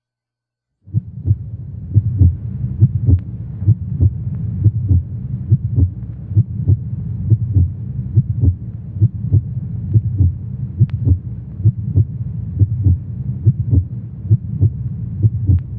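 Heartbeat sound effect: a steady rhythm of low, muffled thuds about twice a second, starting after a moment of silence.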